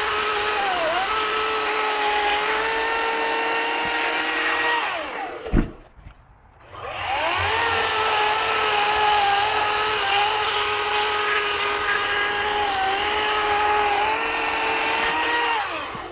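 EGO 18-inch 56-volt battery chainsaw cutting through a log: a steady electric-motor whine with the chain running through the wood. It winds down about five seconds in with a single sharp knock, spins back up about a second later for the next cut, and winds down again near the end.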